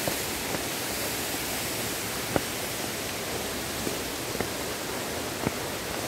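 Steady rushing of falling water, an even hiss without a rhythm, with a few faint ticks about two and a half and five and a half seconds in.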